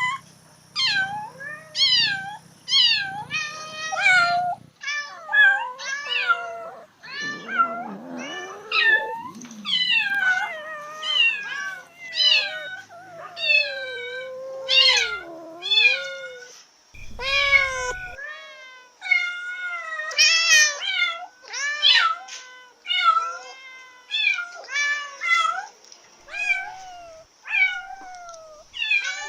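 Cats in heat meowing again and again, about one call a second, most calls sliding down in pitch, with a faint steady high-pitched tone behind them.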